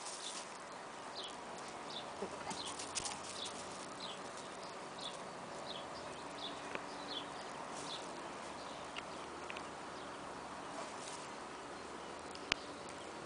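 Two dogs wrestling on gravel: faint scuffing and crunching of paws and bodies on the stones. A bird chirps a quick run of short, high, falling notes for the first several seconds, and a single sharp click comes near the end.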